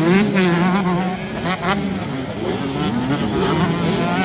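Several 125cc two-stroke motocross bikes revving hard as they pass, their engine notes overlapping and rising and falling in pitch with throttle and gear changes.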